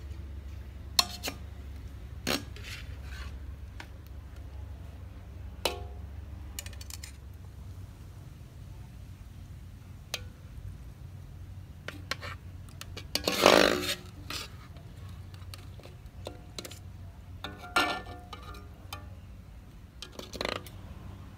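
Metal tongs and a slotted spoon clinking and scraping against a steel wok and a metal serving tray as food is served out: scattered single clinks, with the loudest, longer scrape a little past the middle. A low steady rumble runs underneath.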